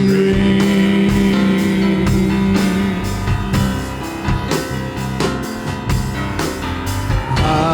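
Worship band playing an instrumental passage: sustained guitar and keyboard-like chords over a drum kit keeping a steady beat, with no singing.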